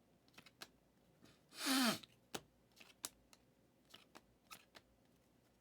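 Trading cards being flipped and slid through the hands, giving a scatter of soft clicks and snaps. About a second and a half in comes a brief wordless vocal sound, falling in pitch, like a short hum or sigh.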